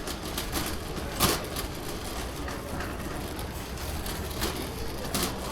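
Shopping cart rolling and rattling across a store floor, with one sharp clack about a second in, over a low steady hum of store ambience.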